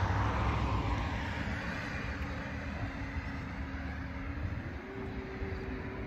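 A passing vehicle's rumbling road noise, loudest at the start and fading, with a faint steady hum that rises to a higher note near the end.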